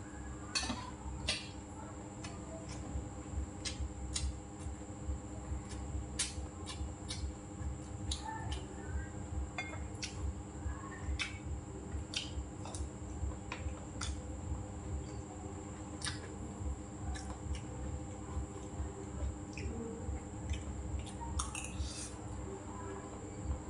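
Close-up eating sounds: chewing and wet mouth noises, with scattered sharp clicks of a metal spoon and chopsticks against a rice bowl. A steady faint hum runs underneath.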